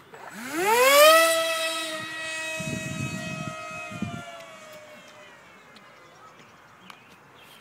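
Electric pusher motor and propeller of a ParkZone Stryker F-27c RC flying wing spooling up quickly to a loud high whine at launch. It holds full throttle as the plane climbs away, and the whine fades and slides slightly lower over the next few seconds. Two short low rumbles come a little past the middle.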